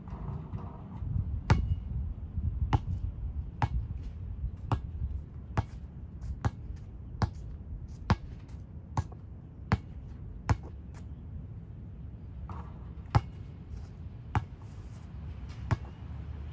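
Basketball bouncing on an outdoor concrete court: sharp slaps about once a second for the first ten seconds or so, then a few scattered ones.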